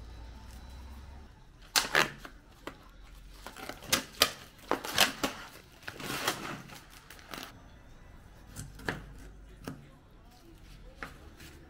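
Plastic packaging of a tray of raw chicken wings crackling and rustling as it is opened and handled. Near the end come a few single clicks of a knife on a cutting board as a wing is cut.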